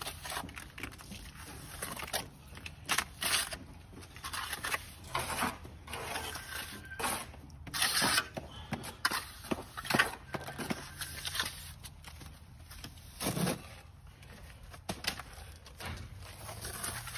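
Hand trowel scraping and spreading wet cement plaster onto a concrete-block wall, applying the brown coat, in irregular short strokes.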